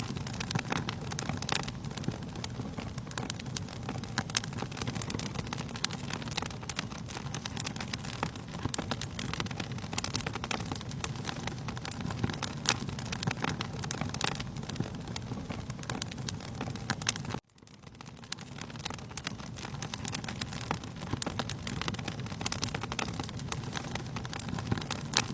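Wood fire in a fireplace crackling, with irregular sharp pops over a steady low rush of flame. About two-thirds of the way through, the sound cuts out abruptly and fades back in.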